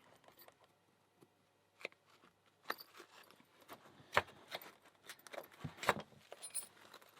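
Scattered small metallic clicks and taps as a shim is worked into a padlock to open it, with a few sharper knocks about four and six seconds in.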